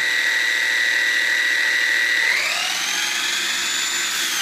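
Brushless motor and drivetrain of a Traxxas Slash 4x4 RC truck with a Castle Mamba Monster system, whining at speed as the wheels spin. The whine holds one steady pitch, rises to a higher pitch a little over two seconds in as the throttle is opened further, and starts to fall right at the end.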